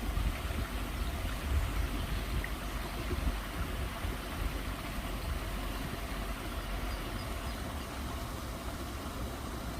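Steady rush of running water, with a low rumble underneath.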